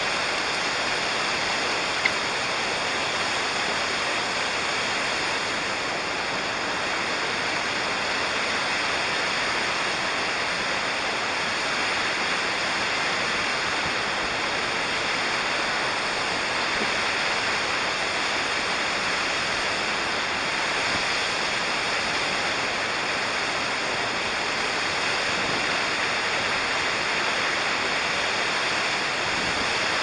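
Waterfall rushing, a steady, even roar of falling water with no let-up. A single brief click comes about two seconds in.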